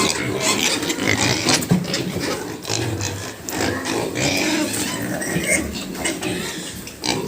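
Pigs in a farm pen grunting and oinking, with many short, irregular sharp knocks and clicks among the grunts.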